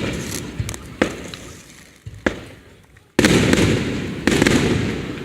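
Aerial firework shells bursting: a run of sudden booms, each rumbling away over about a second, with the two loudest in the second half.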